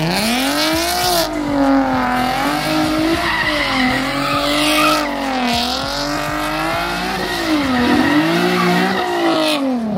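A car engine held at high revs with the tires squealing, the pitch wavering up and down without letting off, then dropping away near the end.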